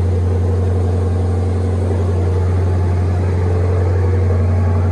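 Car engine idling steadily through a freshly installed aftermarket cat-back exhaust, a loud, even low drone.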